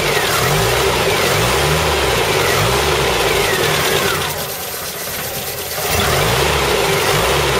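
Land Rover Series III 2.25-litre four-cylinder petrol engine, its pitch rising and falling about every half second. The sound drops and eases off for a moment about four seconds in, then picks up again.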